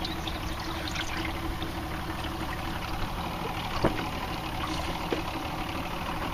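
Skiff's outboard motor idling steadily, with one sharp knock a little under four seconds in.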